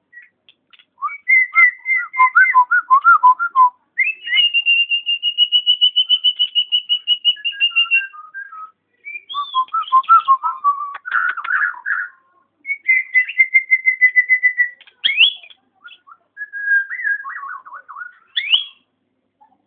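Nias hill myna whistling a series of phrases: quick stuttering notes, then a long even trill held for about four seconds, then shorter phrases with a couple of sharp upward whistles.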